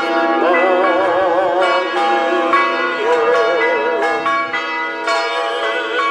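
Several church bells ringing together, strokes overlapping in a continuous peal. Over them a voice sings a slow melody with a wide vibrato.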